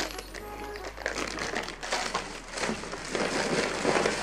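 Plastic wrappers of Indomie instant noodle packets crinkling in the hand as the packets are picked up and set down one by one.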